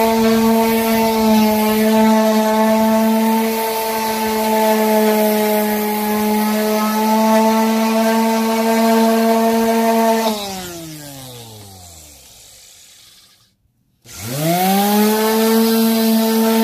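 Electric random orbital sander running on wooden boards with a steady motor hum. About ten seconds in it is switched off and its pitch falls as it winds down; near the end it starts again, its pitch rising quickly back to full speed.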